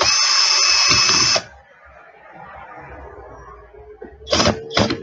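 Electric screwdriver whining at speed as it drives a screw into a power drill's plastic housing, then stopping abruptly after about a second and a half. Quieter handling noise follows, with two short loud sounds near the end.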